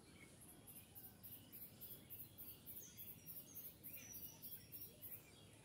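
Near-quiet rural pond ambience: a faint, very high insect call pulsing about three times a second, with a few faint bird chirps.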